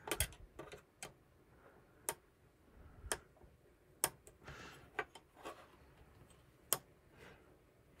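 Small sharp clicks and taps of a flathead screwdriver tip working against a push-on spade terminal on a rocker switch, prying the terminal up. There are about eight clicks, irregularly spaced, with faint scraping between them.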